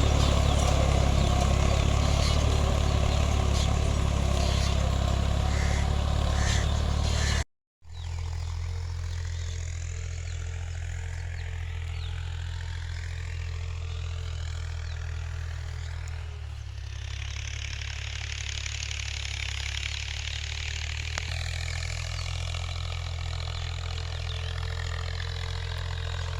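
Ghazi 65 hp tractor's diesel engine running steadily. A brief dropout about seven seconds in, after which it runs on a little quieter.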